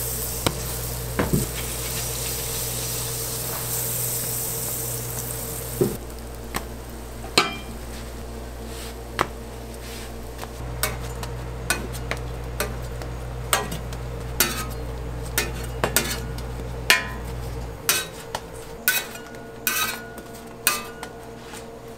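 Melted butter sizzling on a hot flat-top griddle, the hiss dying down about six seconds in. Then comes a run of sharp clicks and clacks, roughly one a second and quicker near the end, as the toasted burger buns are handled and set down on a metal tray.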